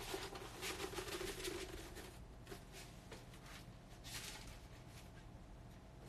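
Large paper poster rustling and crinkling as it is handled and rolled up by hand, busiest in the first two seconds, with another short rustle about four seconds in.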